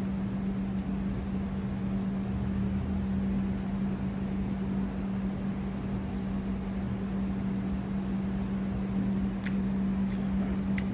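Steady machine hum over a constant background hiss, with a couple of faint clicks near the end.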